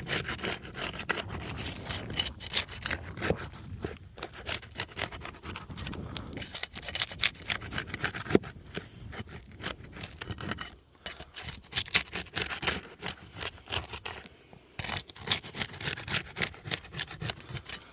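Asphalt 3-tab shingles being worked loose with a metal roof snake shingle-removal tool: gritty scraping and rubbing with many small clicks, easing off briefly twice.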